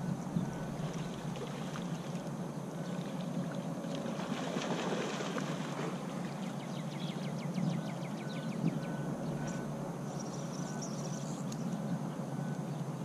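Water lapping and trickling against a small fishing boat's hull, with a run of quick clicks about seven seconds in from a spinning reel being cranked as a hooked catfish is reeled in.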